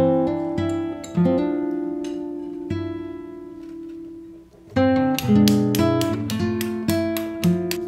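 Background music of a plucked acoustic guitar, single notes ringing and fading. It drops away briefly just after the middle, then comes back with a quicker run of plucked notes.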